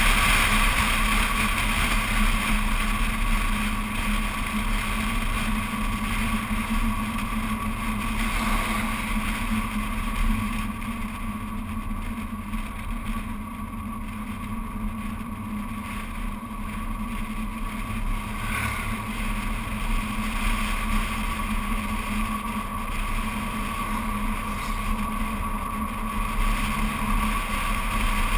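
BMW Z4 Coupé driving along at road speed, heard from a camera mounted on the outside of the car: a steady rush of wind, tyre and engine noise. It eases off for a few seconds in the middle and then builds again.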